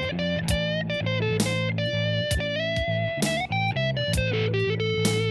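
Guitar playing a slow blues: single plucked notes and short phrases that ring on, with string bends and a sliding run downward near the end.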